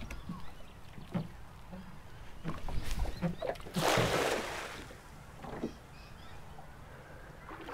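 A cast net's weighted ring landing on the water, a rushing splash about four seconds in that fades over about a second. A few low knocks come just before it.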